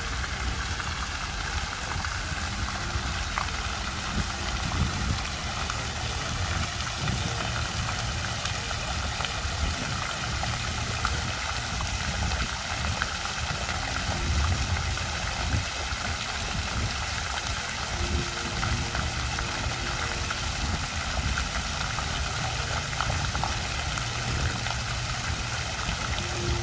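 Fountain water splashing and trickling steadily, over a constant low rumble.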